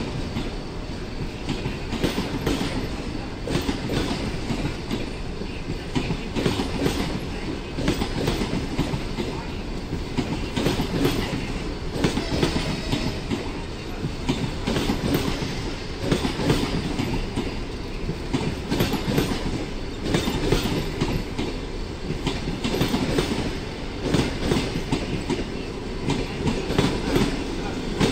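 Passenger coaches of a departing train rolling through the station, their wheels clicking and knocking irregularly over rail joints and pointwork.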